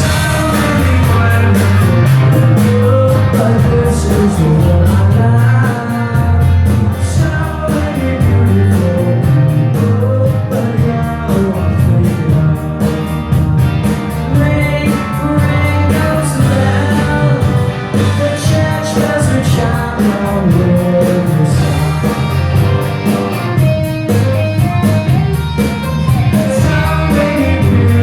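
Rock band playing live: electric guitars, bass and a drum kit, with a singing voice.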